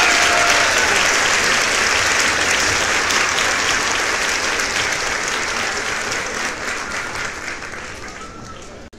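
Crowd applause, a dense steady clapping that slowly fades and cuts out just before the end.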